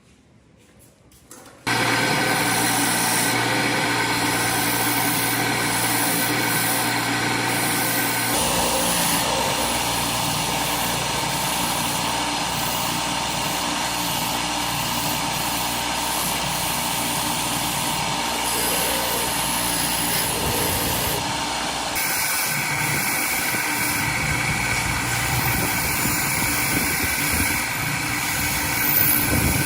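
Small lawn mower engine running steadily after starting abruptly about two seconds in; its note changes twice as it keeps running.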